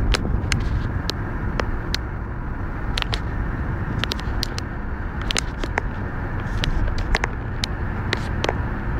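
Steady road and engine noise heard inside the cabin of a car driving at highway speed, with scattered sharp clicks, about two a second.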